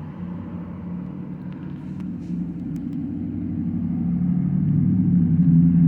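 Steady low engine hum of a motor vehicle, holding one pitch and growing louder over several seconds.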